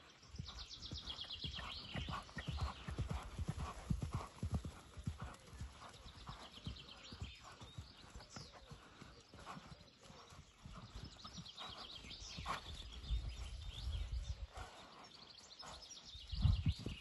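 Hoofbeats of a ridden, heavily feathered Gypsy cob cantering on a sand arena: a continuous rhythm of low thuds.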